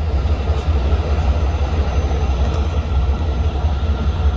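Heavy diesel trucks idling: a steady, loud low rumble.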